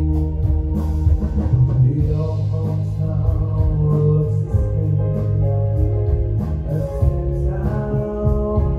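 Live pop-rock band playing: electric guitars, keyboard and drum kit with a steady beat, with a singer's voice over the band.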